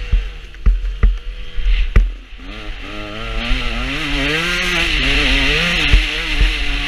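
Motocross dirt bike engine under way on a dirt track. About two seconds in the throttle is shut off, then the engine revs back up, its pitch climbing and wavering as the bike accelerates, with wind hiss on the microphone. Several sharp knocks come in the first two seconds and once more near the end.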